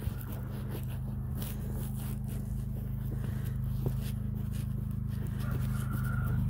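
Steady low hum of a John Deere garden tractor's engine running, with footsteps crunching over snow and frozen dirt.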